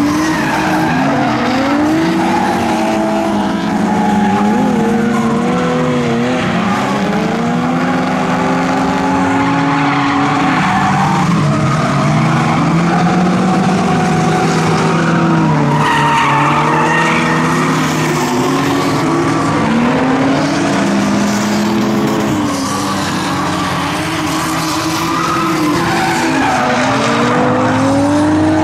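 Turbocharged Honda Civic drift car's engine revving hard, its pitch climbing and dropping again and again, with tyres squealing and skidding as it drifts.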